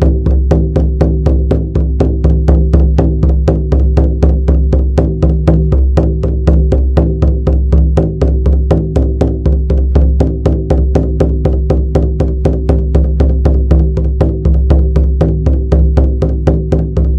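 Shamanic frame drum beaten in a fast, even, unbroken rhythm of about four to five strokes a second, its low resonance ringing on continuously between the strokes.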